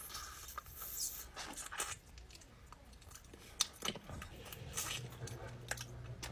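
Close-up eating sounds of a person eating boiled crawfish: scattered soft wet smacks, sucks and small clicks of chewing at the shell and meat.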